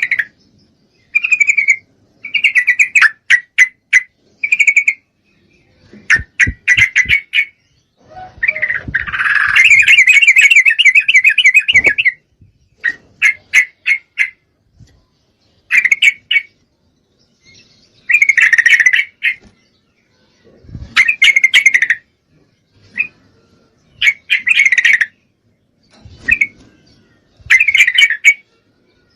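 Female yellow-vented bulbul calling in short, loud runs of chattering chirps, with one long, rapid trill about a third of the way in. These are the calls of a female in breeding condition calling a male.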